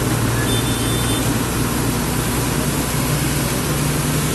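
Bus engine running steadily, heard inside the cab, under a constant hiss of rain and road noise; the engine note rises a little near the end.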